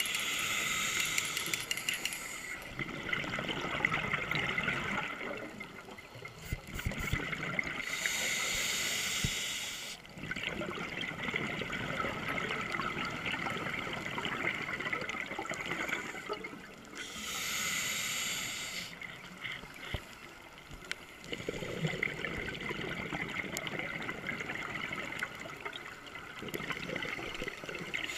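Scuba diver breathing through a regulator underwater: a hiss on each inhale, about every nine seconds, with the bubbling of the longer exhales in between.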